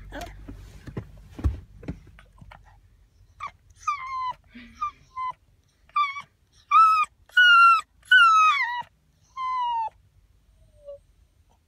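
Puppy whining: a series of about eight high cries, each falling in pitch, the loudest and longest ones about seven to nine seconds in.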